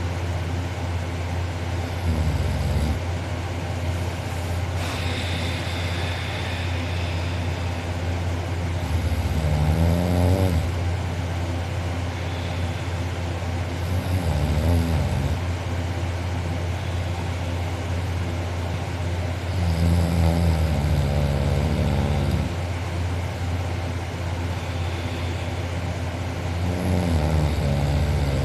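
A man snoring loudly in deep sleep, about every five to six seconds, each snore lasting one to three seconds, over a steady low hum.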